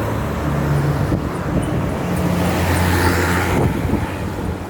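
Heavy bus engine running in passing convoy traffic: a steady low drone, with a rush of noise about three seconds in.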